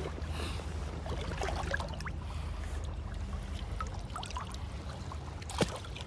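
Shallow river current running and trickling, with scattered drips and small splashes as a freshly landed smallmouth bass is handled just above the water. A single sharp click near the end.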